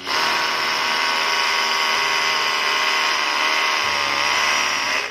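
Cordless hammer drill running continuously in hammer mode, boring a mounting hole into a masonry ceiling. It holds a steady high pitch, sags slightly under load about four seconds in, and stops at the end as the hole is finished.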